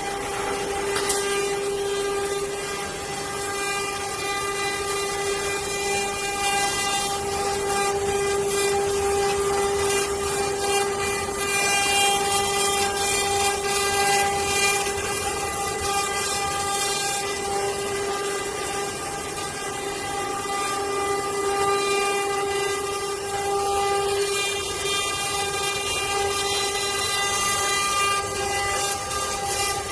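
CNC wood-carving router's spindle running with a steady high whine while the bit cuts wood, giving a rough hiss over the held tone.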